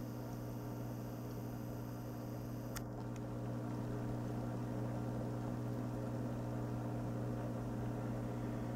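Steady low electric hum of an aquarium's hang-on-back filter motor over a faint hiss, with one faint click about three seconds in.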